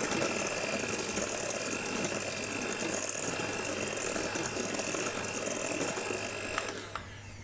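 Ikon electric hand mixer running steadily with a constant high whine, its beaters whisking a thin egg, sugar and oil batter in a stainless steel bowl. The motor cuts off near the end.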